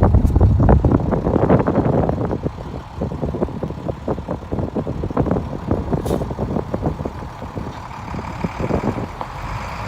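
International 4900 bucket truck's diesel engine running, louder in the first couple of seconds, with irregular rattles and knocks over it.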